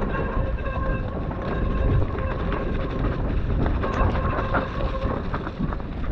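Mountain bike descending a wet, muddy forest trail: tyre rumble, wind on the microphone, and the knocks and rattles of the bike over bumps. A steady high whine from the drivetrain runs along with it and stops about five seconds in.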